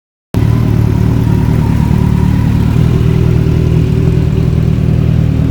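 Kawasaki inline-four motorcycle engine idling steadily through its exhaust, with an even low note that neither rises nor falls.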